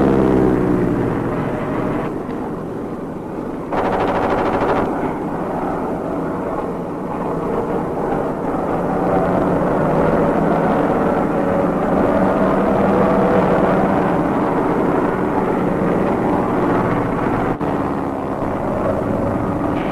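Propeller aircraft engines droning on an old film soundtrack. An engine whine falls in pitch at the start, and the sound changes abruptly about four seconds in before settling into a steady drone of several engines.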